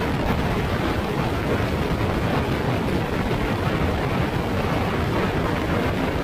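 A motorcycle on the move: a steady rush of wind on the microphone mixed with engine and road noise, with no change in pace.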